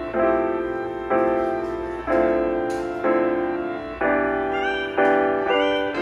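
Background music: chords struck about once a second, each fading away before the next.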